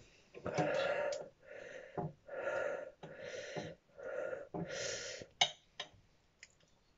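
A man breathing hard and fast through his mouth, loud rushes of air about once a second, from the burn of a superhot chilli pod he has just eaten. A few sharp clicks come about five and a half seconds in, after which the breathing quietens.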